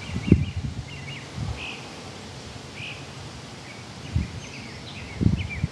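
Small birds chirping in short, repeated calls over a faint hiss, with a few low thumps, the loudest shortly after the start and near the end.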